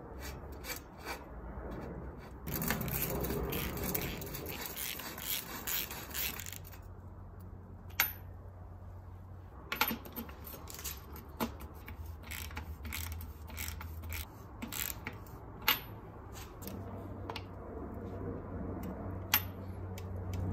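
Hand tools working a cartridge bottom bracket into a steel bicycle frame's shell: scraping and rubbing as it is threaded in about three seconds in, then tool clicks, ratchet clicks and a few sharp metallic clinks that ring briefly as it is tightened with a splined bottom-bracket tool and a ratchet wrench.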